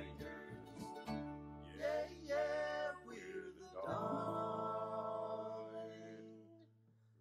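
Background song with guitar and singing; a long held sung note about four seconds in fades out near the end.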